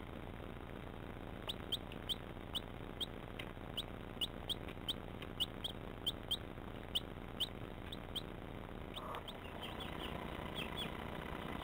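A young chick peeping: a steady series of short, high cheeps, about two a second. Near the end, fainter chirping.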